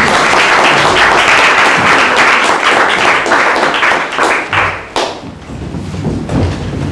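An audience applauding, many hands clapping at once, dying away about five seconds in.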